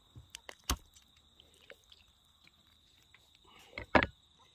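Knife and hands working on a rabbit carcass on a wooden cutting board: a few sharp taps and clicks in the first second and a louder knock near the end.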